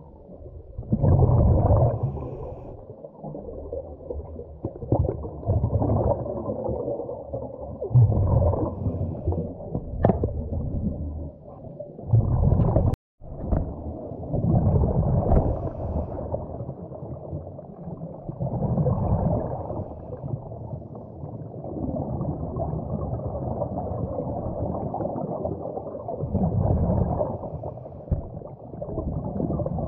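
Muffled low underwater rumble and gurgling picked up through a camera's waterproof housing, swelling into louder surges every few seconds.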